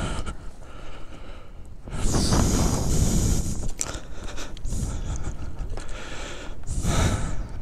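A person breathing hard in heavy puffs that blow on the microphone; the longest puff comes about two seconds in, with shorter ones later.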